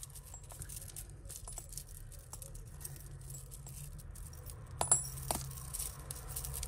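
Small metal costume-jewellery pieces clicking and clinking as they are handled and sorted, with two sharper clinks close together about five seconds in.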